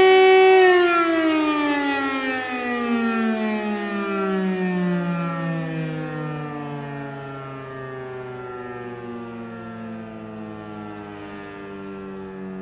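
Siemens FM Si 41 electric motor siren (5 kW) sounding the civil-defence warning: it holds its top note of about 380 Hz for a moment, then its pitch and loudness sink slowly and steadily as the rotor winds down.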